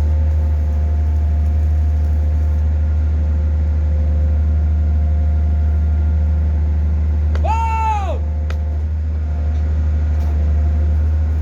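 Hydraulic static pile driver's power pack engine running with a steady, deep drone. About two thirds of the way through, a short pitched call rises and falls over it.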